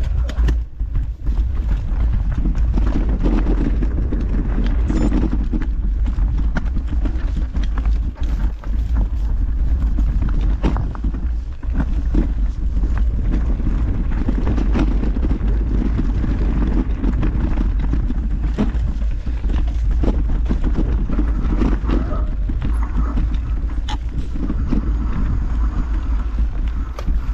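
Mountain bike rolling over a rough trail: tyre noise with frequent knocks and clatter from the bike. A steady low rumble of wind on the microphone runs underneath.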